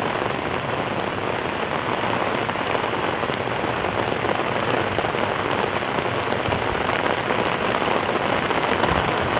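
Steady rain falling, an even hiss of drops on surfaces.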